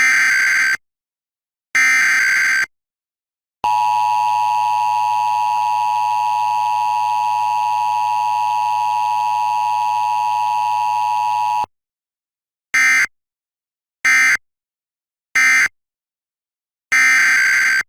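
Emergency Alert System tones: two SAME header data bursts, then the steady two-tone attention signal, about eight seconds long, with no voice message after it. Then come three short end-of-message data bursts, and a new header burst begins near the end.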